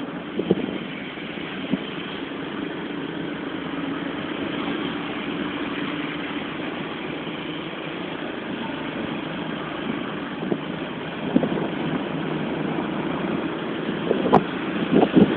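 Motor vehicle running steadily with road noise, a low steady hum that fades about eight seconds in, and a few short knocks in the last five seconds.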